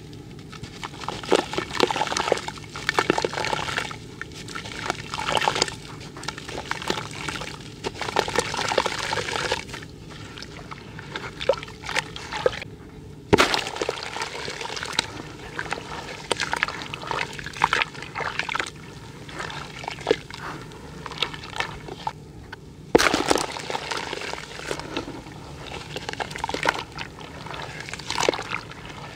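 Hands crushing and crumbling a wet, gritty dried clay lump in a bucket of muddy water: irregular crunching and grinding mixed with splashing and sloshing. Two sharp knocks stand out, one near the middle and one about three-quarters through.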